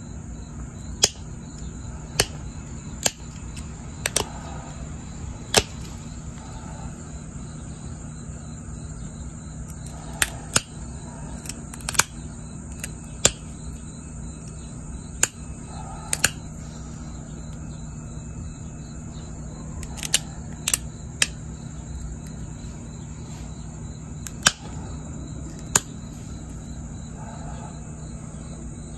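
Pressure flaking a jasper blade: sharp clicks at irregular intervals, about one every one to two seconds, as the metal-tipped pressure flaker pops small flakes off the edge of the stone.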